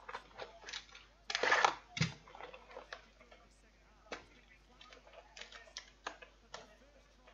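Foil trading-card pack wrappers crinkling and rustling as they are handled and opened, with a louder crinkling rush about a second and a half in and a knock just after. Sharp crackles and clicks follow at uneven intervals.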